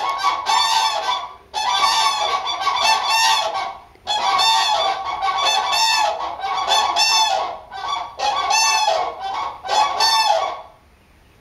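Common cranes giving their trumpeting unison call, several birds calling together in a dense run of loud, rolling bugle notes. The calling breaks off briefly twice and stops shortly before the end.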